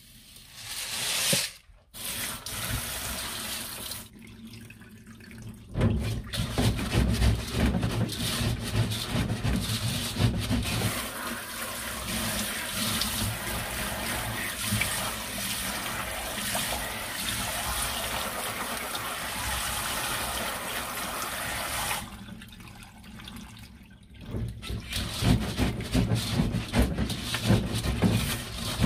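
Kitchen tap running into a stainless steel sink while barley grains are washed by hand in a mesh strainer, the wet grains swished and rubbed between gloved fingers. It opens with a short rush of dry barley pouring into a bowl; the water eases off briefly near the end before rougher scrubbing of the wet grains.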